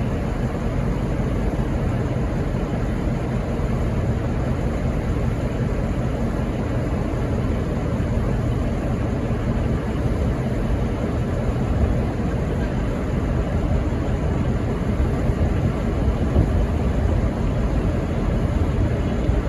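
Diesel locomotive idling while it stands at a signal: a steady low rumble.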